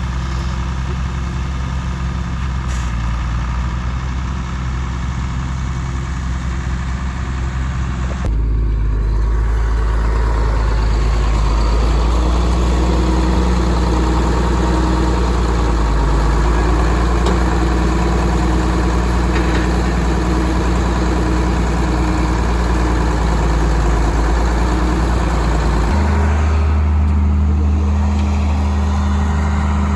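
Motor vehicle engine running steadily with a low hum. Its pitch and loudness step up about eight seconds in, and the hum shifts again near the end.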